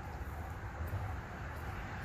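Road traffic passing: a steady low rumble of cars going by.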